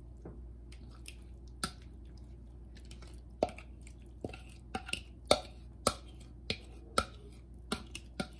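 Plastic kitchen tongs clicking and knocking against a bowl and a frying pan as sautéed mushrooms are scooped onto fettuccine. The sharp, irregular clicks are sparse at first and come thickly from about three seconds in, over a low steady hum.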